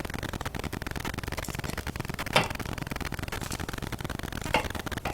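Two short clicks, the first about two and a half seconds in and a fainter one near the end, over a steady hiss: small metal parts and a screwdriver being handled while a washer is screwed onto a faucet valve stem.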